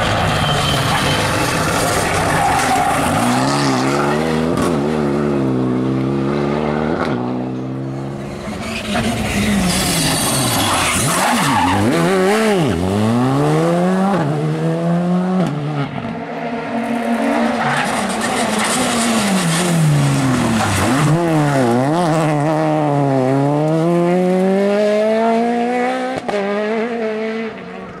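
Rally cars driven flat out on a stage, one after another, engines revving hard. The pitch climbs and drops sharply many times as the drivers shift up and down through the gears.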